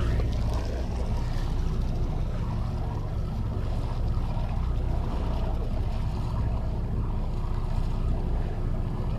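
Charter fishing boat's engine running with a steady low drone, with water and wind noise over it.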